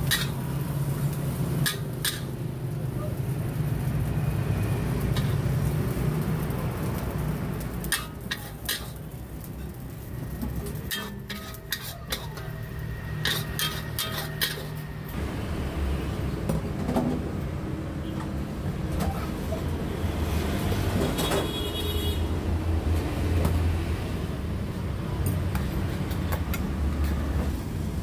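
Metal spatula clanking and scraping against a wok as fried rice is stir-fried, in several runs of quick strikes, over a steady low rumble of road traffic.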